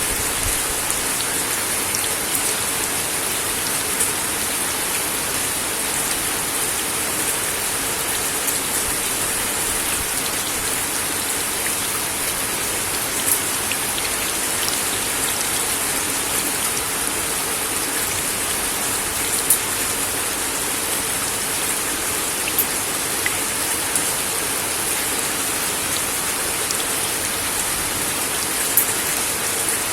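Steady rain falling on a wooden deck, a dense even patter with occasional sharper drop ticks standing out, a few of them louder.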